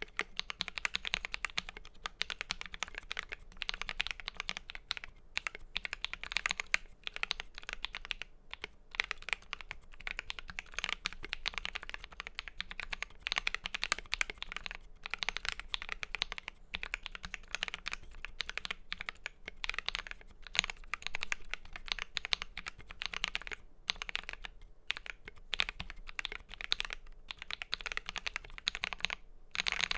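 Fast typing on an FL.eSports MK870 mechanical keyboard with lubed Akko CS Blue switches, PBT keycaps and lubed plate-mount stabilizers: a dense, steady run of keystrokes with a few short pauses.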